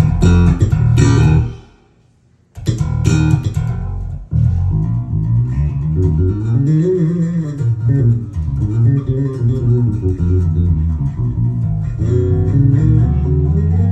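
Lakland Skyline 55-02 five-string electric bass played through speakers: a run of plucked notes, a brief stop about two seconds in, then a continuous bass line with a slide up and back down in pitch.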